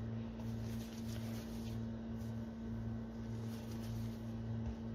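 A steady low electrical hum, with faint soft sounds of hands pressing and pulling bread dough into balls.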